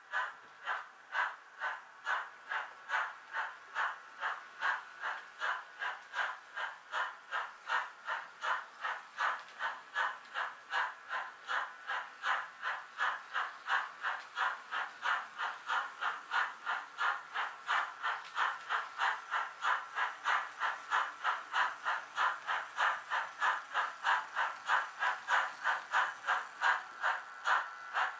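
Model steam locomotive's sound decoder playing steam exhaust chuffs through its small loudspeaker, a steady beat of a bit over two chuffs a second that grows louder as the engine approaches.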